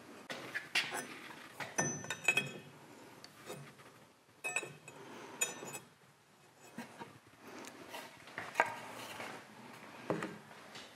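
Hand tools clinking and knocking against the metal parts of a lathe's clutch assembly: a scattered series of light metallic clinks and taps, some ringing briefly.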